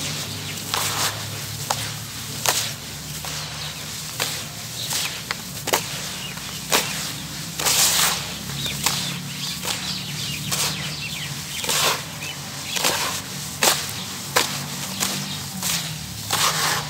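Gloved hands squeezing and crumbling damp sand-cement mix in a plastic tub: gritty crunching and rustling in repeated strokes, about one or two a second, some louder than others.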